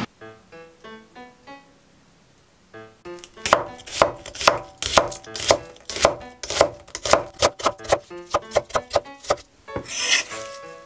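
Cleaver-style kitchen knife slicing an onion on an end-grain wooden cutting board. After soft music opens, a run of sharp chops starts about three seconds in at roughly two a second and gets quicker near the end. A brief scrape follows as the slices are gathered on the board.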